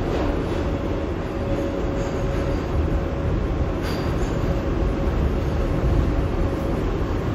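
An R142A subway car running along the track, heard from inside: a steady low rumble and rattle of wheels on rail with a thin steady whine over it.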